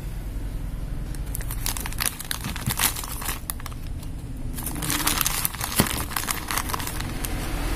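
Plastic packaging crinkling and rustling as it is handled, in two bouts of dense small crackles, with light clicks of metal clutch shoes being turned over in the hands.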